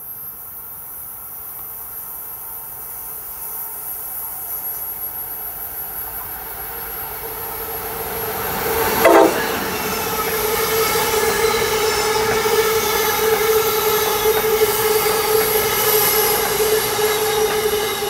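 Amtrak Northeast Regional passenger train approaching and passing at speed on the electrified Northeast Corridor, growing steadily louder. About nine seconds in, as the locomotive goes by, there is a short loud horn blast that drops in pitch. The cars then rush past with a steady ringing tone over the rail noise.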